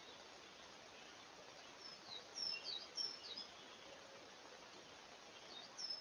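Wild birds calling over a steady faint hiss: short high chirps, several slurring downward, in a cluster around the middle and again near the end.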